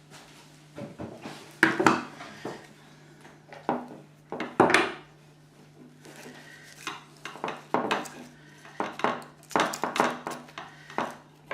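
Metal tools and parts of a dismantled electric parking brake unit being handled on a workbench: irregular clinks, clicks and knocks, the loudest a little under two seconds in and near five seconds in, over a faint steady hum.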